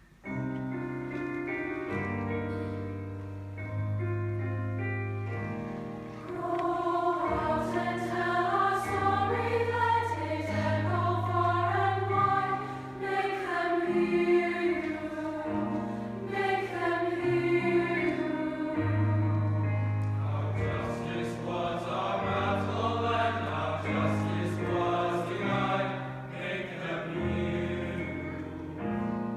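Combined children's and youth choir singing in parts with digital piano accompaniment. The piano comes in suddenly at the start, and the voices swell louder about six seconds in.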